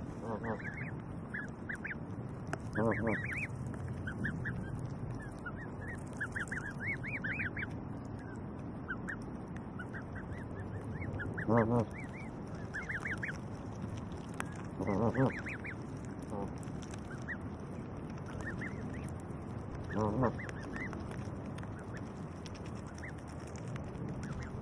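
Canada goose goslings peeping in a steady stream of short, high calls while their parents feed beside them. An adult Canada goose gives several low honking calls among the peeps.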